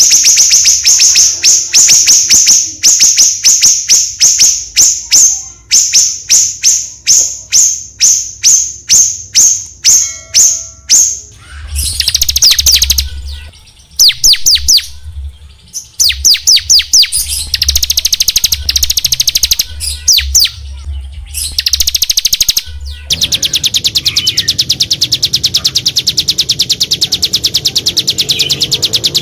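Songbird song in an edited masteran recording: a long run of rapid, high-pitched repeated notes, then several separate bursts of trills with short gaps, and from about two-thirds of the way in one continuous, very fast trill.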